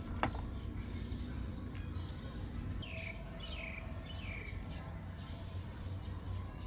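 Small birds chirping, a quick run of short calls that each slide downward in pitch, over a steady low background rumble. A single sharp click sounds just after the start.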